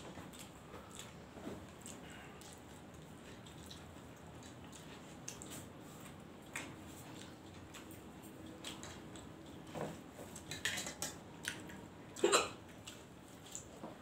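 Eating by hand from steel plates: scattered soft clicks and taps of fingers working rice and curry against the metal, with chewing. The clicks bunch up near the end, and the loudest is one sharp sound about twelve seconds in.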